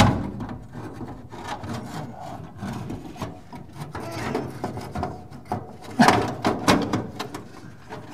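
Parts being handled and worked into place behind a car's dashboard while fitting the windshield wiper linkage: rubbing, scraping and short knocks. A knock right at the start and a cluster of louder knocks about six to seven seconds in are the loudest.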